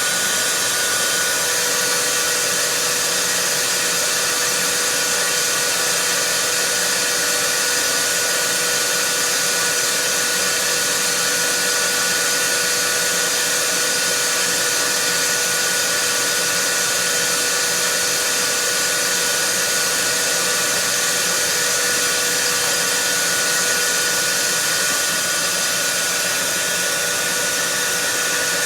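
Vacuum cleaner running steadily: a constant rush of air with a steady motor whine over it.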